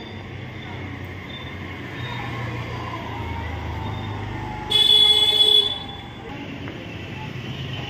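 A vehicle horn sounds once, a loud steady toot lasting about a second, a little past the middle, over a low rumble of traffic.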